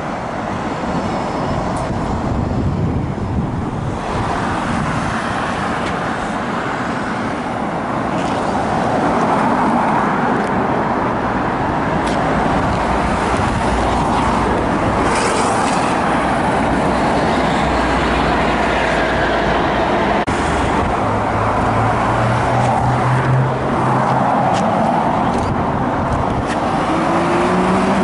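Road traffic: cars driving past in a continuous stream. In the second half one car's engine note stands out, and near the end an engine rises in pitch as the car accelerates.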